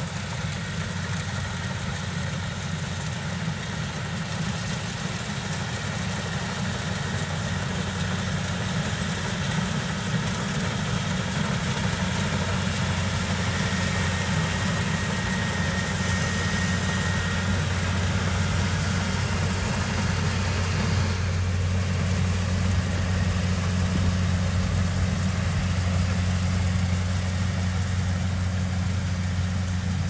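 Kubota DC70 Plus rice combine harvester's diesel engine and threshing machinery running steadily while harvesting. A low engine hum sits under a continuous mechanical rush, and it grows louder in the second half as the machine comes closer.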